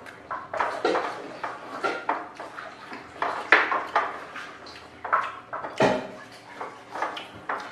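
Irregular clinks and clatter of plates, bowls and glasses as people eat at a table, with eating sounds in between.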